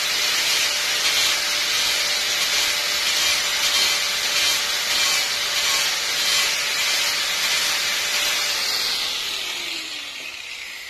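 Angle grinder with an abrasive disc grinding and shaping a hardwood knife-handle block, the disc rasping on the wood over a steady motor whine. Near the end it is switched off and winds down, its pitch falling.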